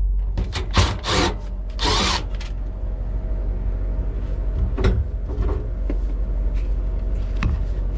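Cordless drill run in a few short bursts at a screw in a stainless-steel fan housing; the screw's back piece is spinning, so it is being drilled off rather than backed out. Light metal clicks follow later, with a steady low hum underneath.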